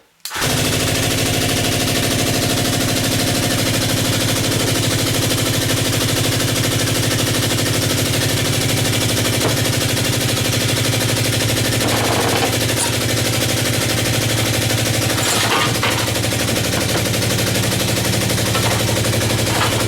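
Electric winch running steadily under load, a loud buzzing drone at an even pitch that starts abruptly and cuts off just before the end, lifting a piece of the refrigerator. A couple of brief knocks come partway through.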